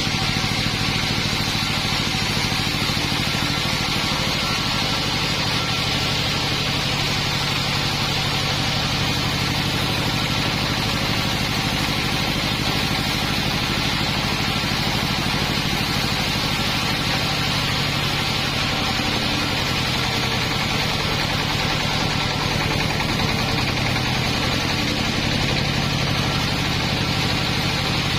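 Sawmill engine running steadily, with a steady high hiss over it.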